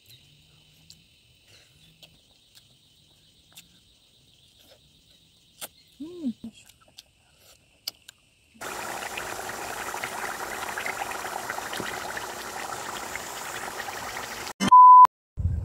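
Pork curry simmering and sizzling in a pan, a dense crackling hiss that starts a little over halfway in. It is cut off by a short, loud single-pitch beep near the end. Before that it is fairly quiet, with a faint steady high buzz and a few soft clicks.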